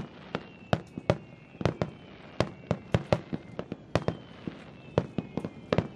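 Fireworks display: a rapid, uneven series of sharp bangs from bursting shells, about three a second.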